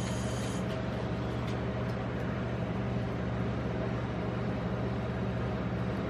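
Steady low hum of a rolled-ice-cream machine's refrigeration compressor running under its cold plate, with a few faint clicks as a chocolate egg is handled.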